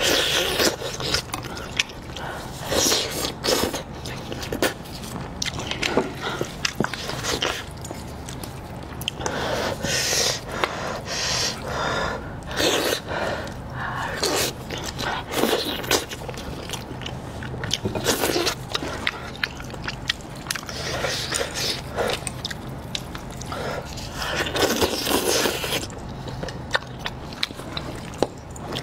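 Close-up eating sounds: biting and tearing meat from a spiced sheep's head and jawbone, with wet chewing and smacking in irregular bursts.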